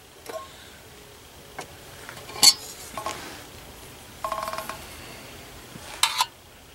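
Stainless steel camp cookware clinking and clanking as a canteen cup's lid is lifted off and the cup is handled. There are several separate metal clinks, the sharpest about two and a half seconds in, and a brief ringing note a little after four seconds.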